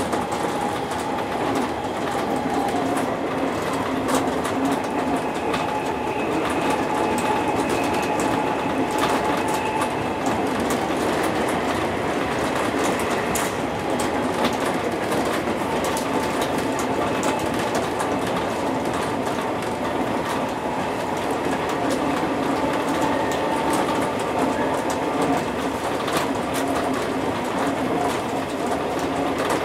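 JR East 201 series electric commuter train running at speed, heard from inside the driver's cab: a steady rumble of wheels on rail with scattered clicks over the rail joints.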